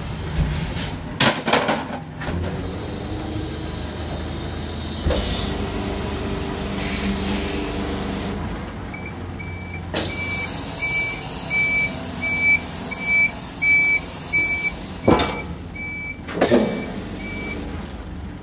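Rotary-plate garbage truck packer cycling: a clatter of knocks about a second in as the plate sweeps the load into the body, then a steady hydraulic whir. From about nine seconds a high warning beeper sounds about every 0.6 s, with two heavy clunks near the end.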